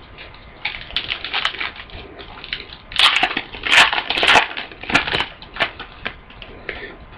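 Foil trading-card pack wrapper crinkling and tearing as a new pack of football cards is opened, in irregular crackly bursts that are loudest and busiest in the middle.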